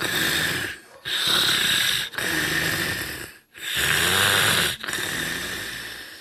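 Loud, exaggerated snoring: three rasping breaths in and out, each in-and-out pair lasting about two seconds, with short pauses between them.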